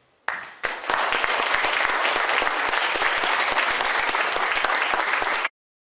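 Audience applauding: clapping begins just after the start, builds quickly, then continues steadily before cutting off suddenly near the end.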